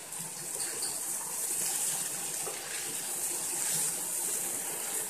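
A masala of boiled black chickpeas sizzling in a pan over a medium gas flame, a steady hiss, with a spatula stirring through it near the end.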